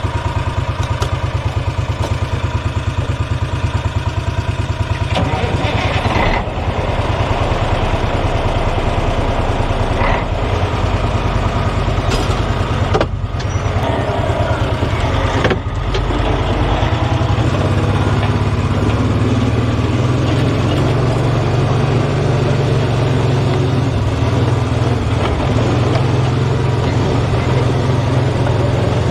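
Truck engine running steadily after starting, with a few short knocks, then working harder from a little past halfway as its low pitch rises slowly, as when the truck pulls away.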